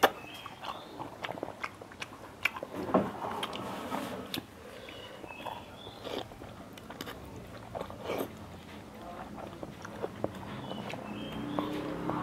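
Close-up eating sounds of noodle seblak: wet chewing, slurping of noodles and many short sharp mouth clicks and smacks.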